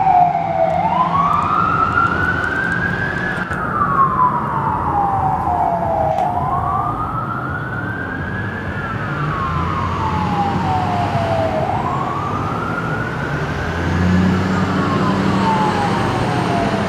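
Ambulance siren on a slow electronic wail, rising and falling in pitch about once every five to six seconds. A low road and engine rumble runs beneath it and grows louder near the end.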